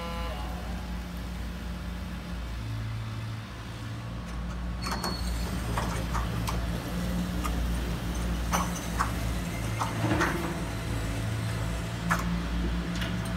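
Motors of a radio-controlled scale Caterpillar excavator running with a low, steady hum that rises and falls as it works. From about five seconds in, stones and dirt clatter and knock in short sharp clicks as its bucket digs.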